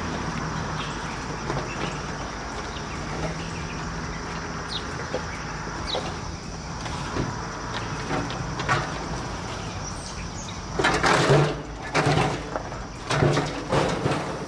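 Metal grill body clanking and scraping as it is handled and stood upright, with a cluster of loud knocks and rattles near the end over steady outdoor background noise.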